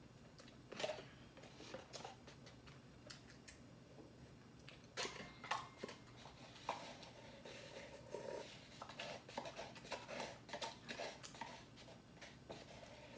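Eating sounds of instant cup noodles being eaten: irregular chewing and mouth noises with small clicks, busier from about five seconds in.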